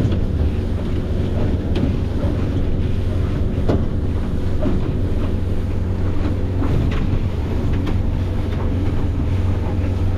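Fishing boat's engine running steadily under way, a constant low drone, with wind buffeting the microphone and a few short knocks scattered through.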